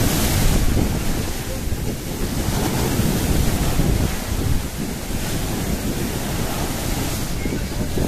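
Rough sea surf breaking and washing over a sandy shore, with waves crashing near the start and again near the end. Wind buffets the microphone.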